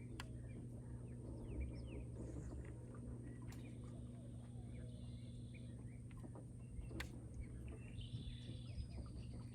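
Birds chirping and calling at a riverside, with short chirps throughout and a brief chattering call about five seconds in and again near eight seconds. Under them run a steady low hum and a steady high-pitched drone, and there are a couple of sharp clicks, the clearest about seven seconds in.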